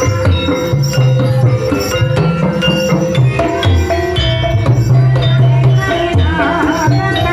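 Live Javanese gamelan-style ebeg accompaniment: hand-played kendang drums over struck, pitched metal instruments, with deep held low notes in repeating phrases.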